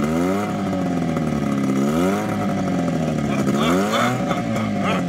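Small outboard motor running and purring, its speed rising and falling three times as the throttle is opened and eased back.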